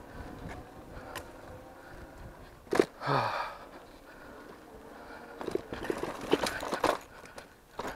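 An e-bike ridden over a rough, sandy trail: tyres rumbling on the ground and the bike rattling, with a sharp knock about three seconds in followed by a short louder burst, and a run of clattering knocks over the last few seconds.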